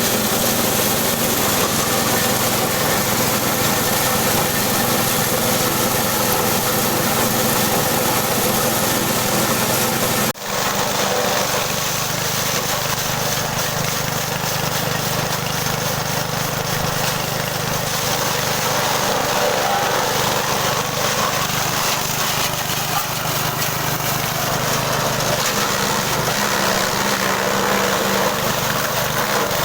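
Small engine driving a multi-function grass chopper and hammer mill, running steadily. There is a sudden short break about ten seconds in, after which it runs on at a slightly different pitch.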